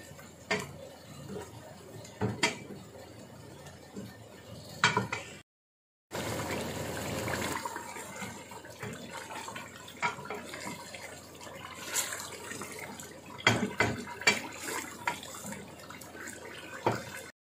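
Wooden spoon stirring and scraping thick mutton curry masala in an aluminium pressure-cooker pot, with a few sharp knocks of the spoon against the pot. Under it the masala bubbles and sizzles in its oil as the yogurt liquid cooks off and the meat is fried in the masala (bhuna).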